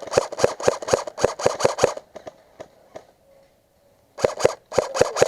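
Airsoft gun firing a rapid string of single shots, about five a second, for two seconds. After a pause, a second string comes near the end.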